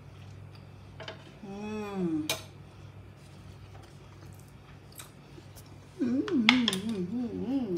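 A utensil clinking and scraping against a pan of rice as some is scooped up to taste, with a few sharp clicks. A woman hums an appreciative 'mmm' twice while tasting: a short falling one about a second and a half in, and a longer wavering one near the end.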